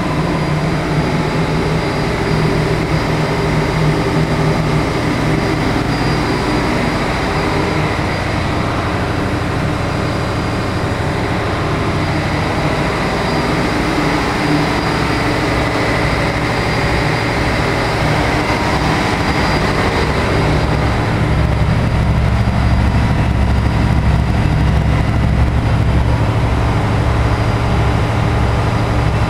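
Engine-room machinery of a general cargo ship running: a loud, steady drone with a deep hum underneath, which grows stronger about two-thirds of the way through.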